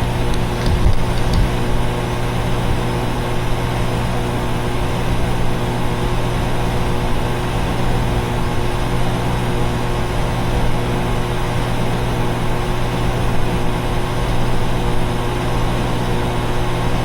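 Central air conditioner condenser units running: a steady hum with a low drone under an even rushing noise from the fans.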